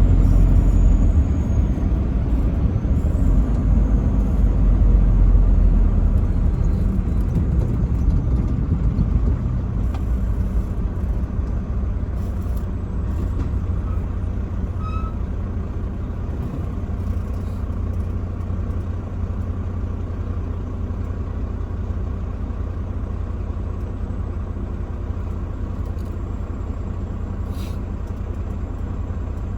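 Low, steady rumble of a truck's engine and road noise while driving, easing off over the first ten seconds or so and then holding steady.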